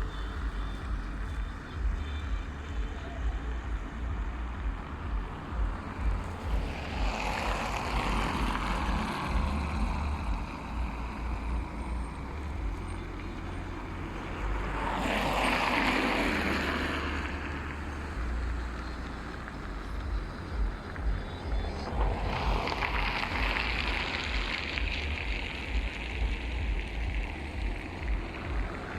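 Wind buffeting the microphone: a constant low, fluttering rumble, with three swells of rushing noise where the gusts strengthen.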